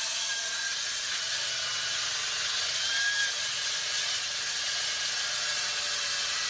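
Hydraulic diamond-blade handsaw cutting concrete or stone: a steady, high grinding hiss with a faint whine.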